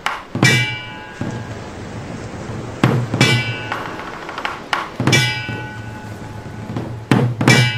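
Lakhon basak theatre percussion: four groups of sharp struck hits, some doubled, about every two to two and a half seconds. Each hit rings out with a metallic tone and a low boom beneath it.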